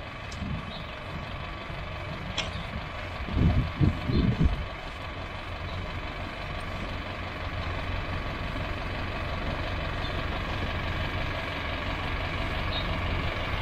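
Tow vehicle's engine running at low revs as it slowly reverses a boat trailer down a ramp, a steady hum that grows a little louder toward the end. A few loud low rumbles come about three and a half to four and a half seconds in.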